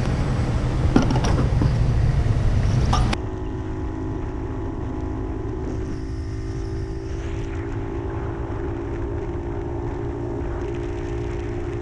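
A few sharp knocks and clatter as a fuel nozzle is handled at a pump. This cuts off suddenly to a Puch 250 TF's two-stroke split-single engine running at a steady even pitch while the bike cruises along the road.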